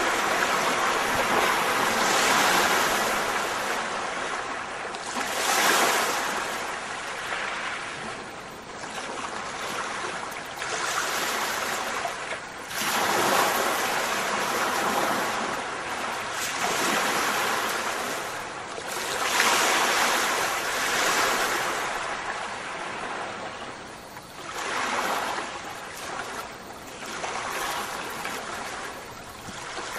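Surf-like rushing noise, swelling and fading every few seconds like waves washing in and drawing back.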